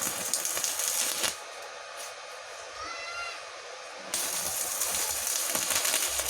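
Stick-welding arc from a REAIM MMA 120 inverter welder set to 100 amps, crackling and sizzling. It goes quieter for about three seconds in the middle, then crackles loudly again near the end.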